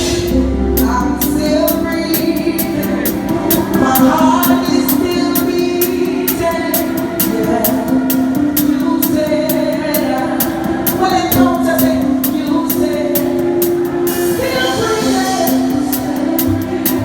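Live band playing a gospel church song, with sustained keyboard chords, melodic runs and a steady, fast high percussion tick that drops out near the end.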